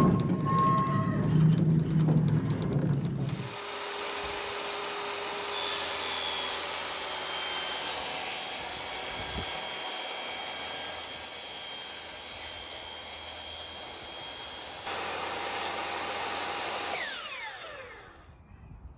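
After a few seconds of low rumbling, a portable table saw runs, ripping a sheet of plywood with a steady high whine. Near the end the saw is switched off and its blade spins down with a falling pitch.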